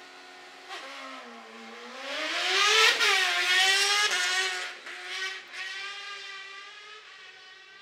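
Car-cross buggy's engine idling at the start line, then revving hard as it launches, climbing in pitch to a sharp break about three seconds in, with a few more dips as it shifts gear, and fading as it pulls away up the road.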